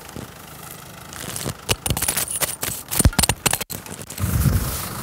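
A quick run of clicks, clinks and scrapes from a makeshift roadside barrier pole being handled and lifted, between about one and a half and four seconds in.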